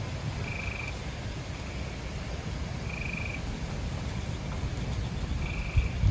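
Frogs trilling: short pulsed calls of about half a second each, repeating roughly every two and a half seconds, with fainter answering trills between them. A steady low rumble sits underneath, and a bump comes right at the end.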